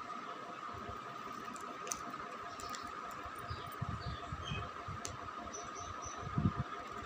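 Steady background hiss with a constant high hum, faint ticks and short high chirps, and a few soft low bumps about four seconds in and again near the end.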